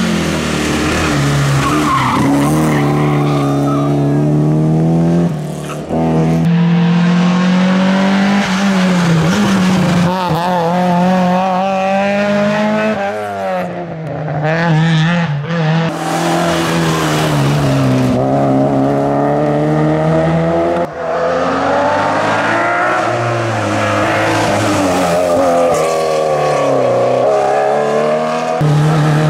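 Historic rally car engines at full attack, revving hard up and down through the gears in a string of short passes, with abrupt changes from one car to the next every several seconds.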